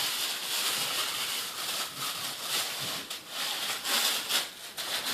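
Packaging being handled: continuous rustling and crackling of plastic and cardboard, with many small sharp crinkles.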